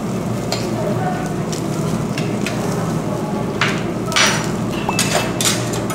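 Meat sizzling on a tabletop grill, with clinks of cutlery and dishes and a few louder scraping rustles in the second half.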